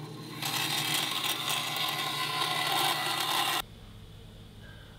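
A shop power tool running with a steady hiss and hum. It runs again from about half a second in and cuts off suddenly after about three seconds.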